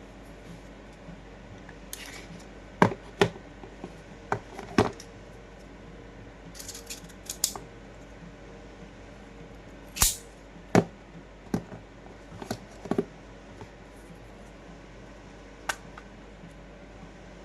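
Sharp mechanical clicks and clacks from handling an airsoft Glock 19 pistol, irregularly spaced, about a dozen in all, in two clusters with a lone click near the end.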